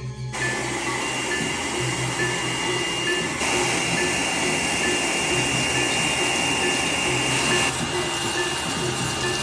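A steady mechanical noise with a constant high whine, like an electric power tool running. It starts abruptly and grows louder and hissier for about four seconds in the middle, as if under load. Faint music with a repeating note pattern plays underneath.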